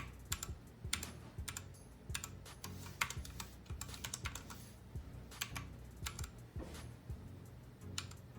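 Keys clacking on a mechanical keyboard fitted with double-shot PBT keycaps, pressed in irregular runs of a few strokes a second.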